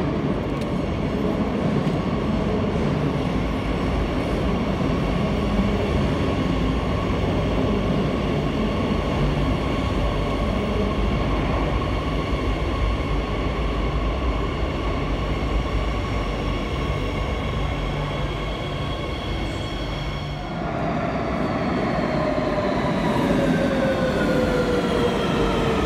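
Madrid Metro CAF Series 3000 train running into an underground station, a steady rumble of wheels under an electric motor whine. About twenty seconds in it changes to a second metro train whose motor whine falls in pitch as it slows along the platform.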